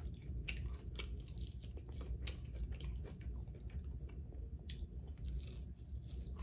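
Close-up chewing and biting on fried chicken wings, with many small irregular crunches and wet mouth clicks.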